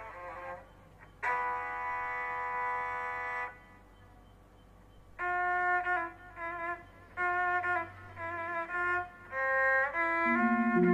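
Music: a slow melody of long held notes. One long note sounds about a second in, then comes a pause, then a phrase of shorter notes, with lower notes joining near the end.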